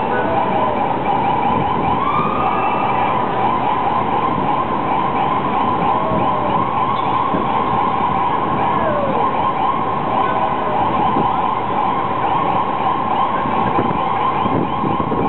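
Ambulance siren sounding continuously on a nearly steady high pitch, with traffic noise underneath.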